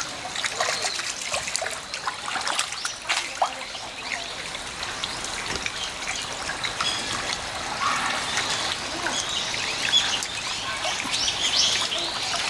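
Water trickling steadily, with many short, high bird chirps scattered through it, more of them in the second half.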